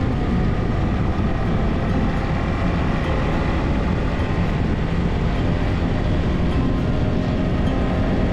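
Steady wind and road noise from riding a motorcycle at speed, heavy and low, with the engine running underneath.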